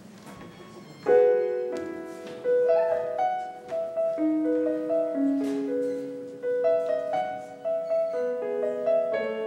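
Piano playing a slow introduction of broken chords, setting in about a second in after a moment of quiet room tone.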